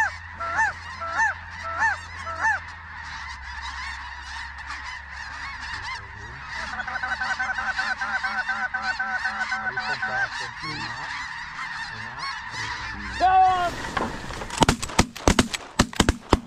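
A large flock of snow geese calling overhead: a steady din of honks with louder single calls in the first few seconds and a fast run of calls in the middle. About two seconds before the end, several shotguns fire about half a dozen shots in quick succession.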